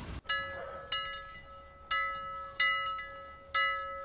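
Bright chime notes struck five times, roughly once a second, each ringing out and fading over one steady held tone: an edited-in wind-chime jingle. The earlier background hiss cuts off abruptly just before the first note.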